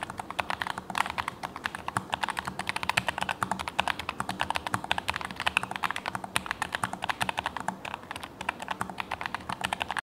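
Fast, steady typing on a modded Keychron K3 Pro low-profile mechanical keyboard: a dense run of keystroke clicks, many a second.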